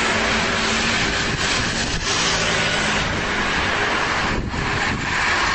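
Strong wind rushing over the microphone, with a vehicle engine running steadily underneath; the rush dips briefly about four and a half seconds in.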